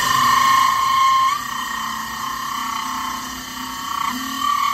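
Cordless drill spinning a diamond core bit as it cuts a drainage hole in the bottom of a flower pot: a steady high whine that drops in pitch about a second in and rises again near the end.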